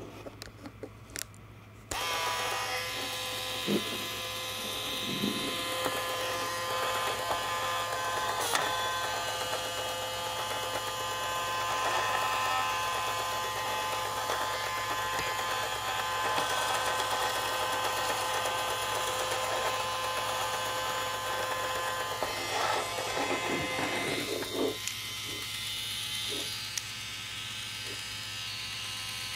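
Small battery-powered electric motor driving a 3D-printed plastic gearbox, switched on about two seconds in after a few clicks, running as a steady whine with a gear buzz. Clicks and changes in the sound come as the gear lever is shifted, and it turns quieter after about 24 seconds.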